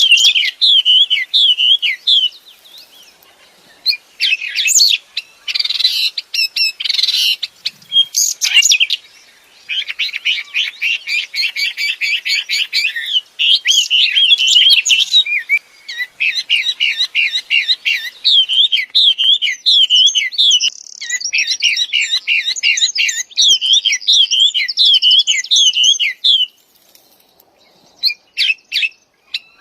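A wambi songbird singing hard: fast runs of high, rapidly repeated chirps and rattling trills, broken by a couple of short pauses.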